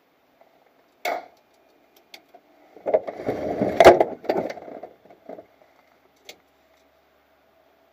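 Handling noises inside a light aircraft's cockpit with the engine off: a sharp click about a second in, then a burst of knocking and rustling with a loud click near the middle, as the pilot works the canopy, followed by a few light clicks, over a faint steady hum.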